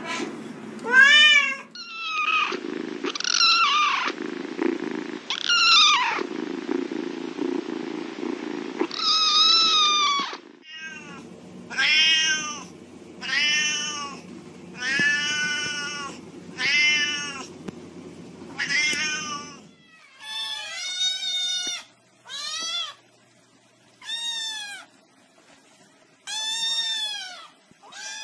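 Domestic cats meowing over and over, about one meow every one to two seconds, each call rising then falling in pitch. A low steady hum lies behind the meows for the first two-thirds.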